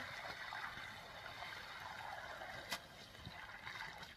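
Faint trickle of irrigation water running from pipes into the furrows of a field, with one brief click partway through.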